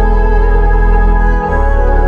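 Background music: sustained organ-like keyboard chords over a deep bass, the chord changing about one and a half seconds in.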